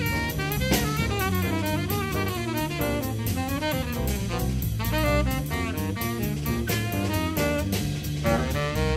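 Small jazz combo playing a swing tune: a tenor saxophone plays quick, winding melodic lines over a drum kit keeping time with evenly spaced cymbal strokes and an electric bass moving note by note underneath.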